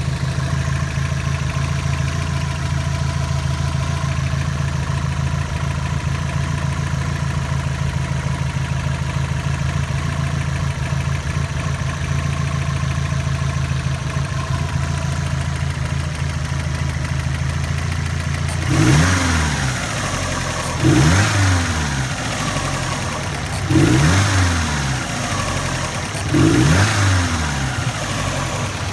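2002 Subaru WRX's turbocharged flat-four engine idling steadily, then revved briefly four times near the end, each rev falling back to idle. The engine has just run with zero oil pressure, and the owner fears its sound is rod knock.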